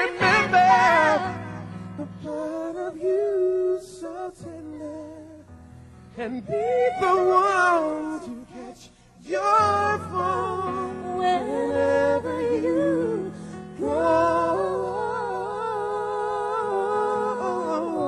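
A woman and a man singing a slow ballad duet live, their voices wavering with vibrato over keyboard accompaniment in long held chords.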